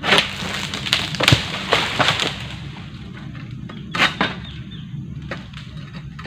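Egrek (long-pole palm sickle) blade cutting into and tearing through oil palm frond bases: a run of sharp cracks with crackling in the first two seconds, then two more cracks about four seconds in.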